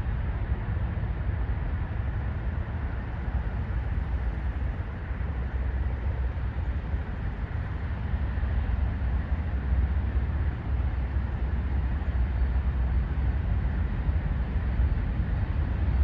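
Boeing 737-700 jet engines at takeoff power after liftoff, a steady deep rumble.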